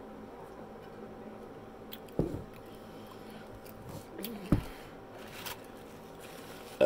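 Close-up eating and drinking sounds after a swig of beer: chewing and swallowing, with two sudden soft thumps about two and four and a half seconds in and a brief hum between them.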